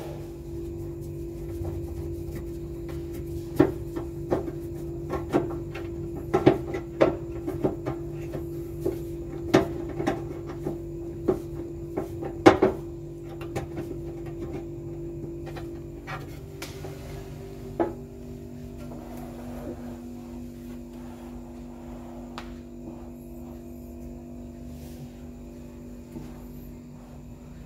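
A run of sharp clicks and knocks, like parts or tools being handled, over a steady electrical hum. The hum drops to a lower pitch with a click about eighteen seconds in, and the knocks thin out after that.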